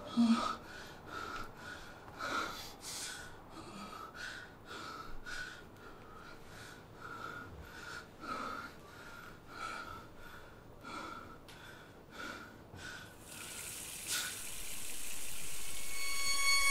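Steady ticking, about two sharp ticks a second, which stops about thirteen seconds in. A high, steady droning tone then swells up near the end.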